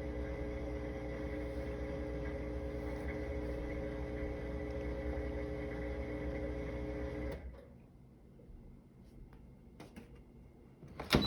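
GE dishwasher humming steadily, a low rumble with several steady tones, cutting off suddenly about seven seconds in. A few faint clicks follow, then a sharp knock near the end.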